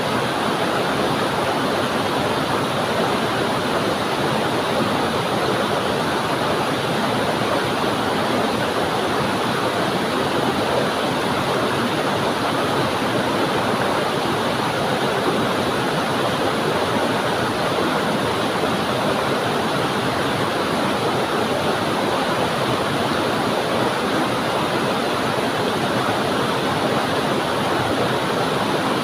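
Waterfall: water falling onto rocks and flowing on, a steady rushing noise that doesn't change.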